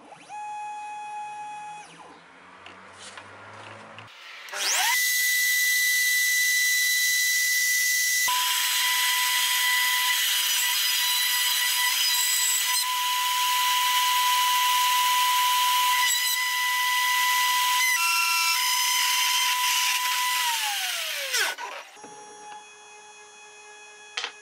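Homemade plywood CNC router: the stepper motors whine as the axes move. About five seconds in, the spindle motor spins up with a rising tone to a loud, steady high whine as its end mill cuts into plywood. Near the end it winds down with a falling whine and the stepper whine returns. The cutter is only hand-tight in the collet, and this first cut goes wrong.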